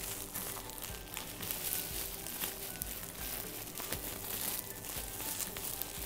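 Plastic bubble wrap crinkling and rustling as it is handled and pulled off a box, with many small crackles throughout.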